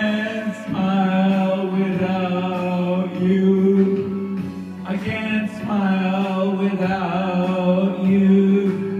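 Man singing karaoke into a handheld microphone, holding long drawn-out notes in two phrases, the second starting about five seconds in.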